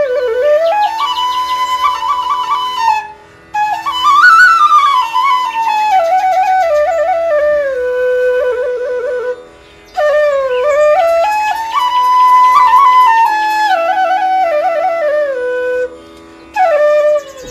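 Background music: a solo flute playing a melody that rises and falls in long phrases over a steady drone, with short breaks between phrases.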